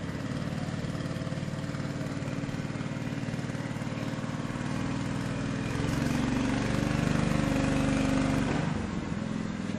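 A small engine running steadily, growing a little louder about halfway through.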